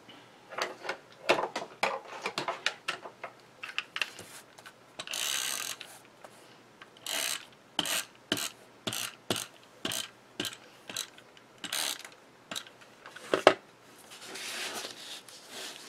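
Handheld adhesive tape runner being run over the back of a paper panel: a string of quick ratcheting clicks and short rolling strokes, with one louder sharp click near the end. A short rustle of paper follows as the panel is handled.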